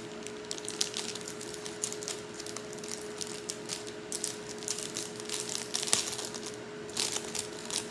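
Plastic food wrapper crinkling and crackling in irregular short bursts as it is handled and opened, over a steady low hum.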